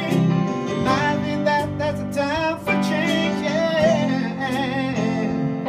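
A live band playing a rock song: electric guitar over keyboard and drums, with cymbal hits along the way.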